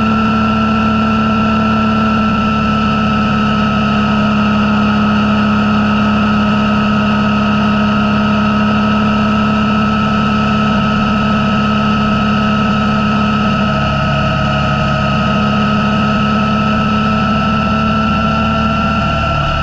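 Motorcycle engine running steadily while cruising along a road, with a steady high whine over the engine note. The engine note shifts slightly about two-thirds of the way through and again at the very end.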